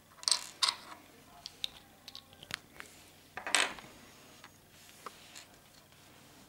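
Small hard-plastic clicks and scrapes as speedcube torpedo pieces are handled and fitted to a Dayan Lingyun cube, with a louder short rustling burst about three and a half seconds in.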